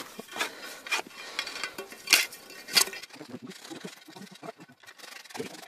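Ice chisel striking and chipping the ice at the edge of a fishing hole to widen it: about five sharp knocks in the first three seconds, the loudest about two seconds in, then softer scraping and crunching of ice.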